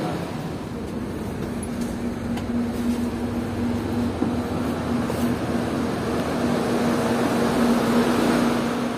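Steady background noise of a busy airport terminal and transport area, with a constant low machine hum running under it.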